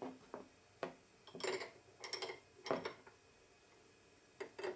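Light metal clinks and taps as an open-end wrench is fitted onto the collet nut of a CNC router spindle to change the bit. A handful of short, separate clicks, a few in quick clusters.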